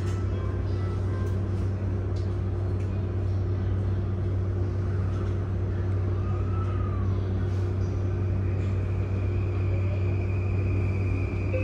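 Inside a JR East E235 series electric train car: the steady low hum of the car's onboard equipment while it stands with doors closed. About eight seconds in, a high steady whine comes in from the Mitsubishi full-SiC VVVF traction inverter as the train begins to pull away.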